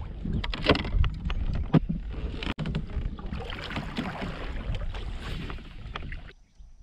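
Wind on the microphone and water against a kayak hull, with scattered clicks and knocks as a fishing rod and reel are handled and cast. The sound drops away abruptly near the end.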